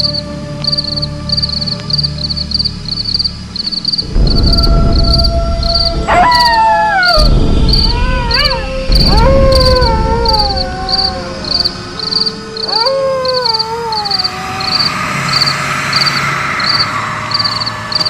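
Crickets chirping in a steady, evenly spaced rhythm throughout. From about four seconds in a deep rumble swells, and four long falling, wavering howls sound one after another; near the end a hiss like wind rises.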